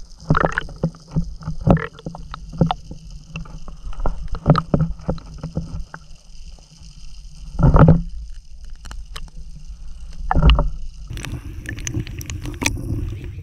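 Muffled underwater sound from a camera in its waterproof housing in shallow sea water: a low rumbling wash of moving water with many scattered knocks and clicks and a few louder thumps. Near the end the sound turns to a fuller sloshing as the camera reaches the surface.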